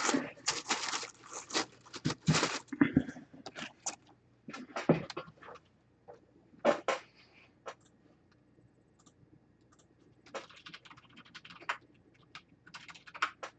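Tissue paper and a jersey being handled: rustling and crinkling in irregular bursts, dense for the first few seconds, then a few scattered ticks, with another short cluster near the end.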